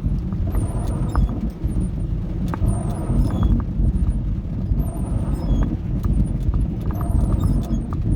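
Dodge A108 van driving over a rough, muddy road: a steady low engine and road drone with frequent knocks and rattles.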